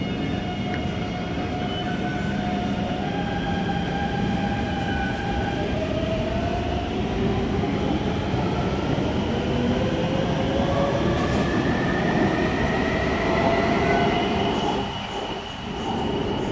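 A metro train runs through the underground station with a steady rumble, its motor whine rising gradually in pitch as it accelerates away.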